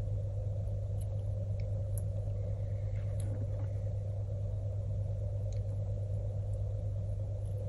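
Steady low electrical hum, with a few faint small clicks from tweezers being handled.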